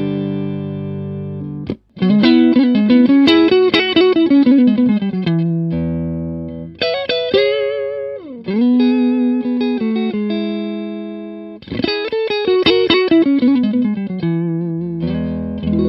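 Electric guitar played clean through a Harley Benton Tube 15 valve amp fitted with a Celestion Vintage 30 speaker: quickly picked chord notes alternating with held, ringing chords. There is a brief cut-out just under two seconds in, and a pitch dip and return around the middle.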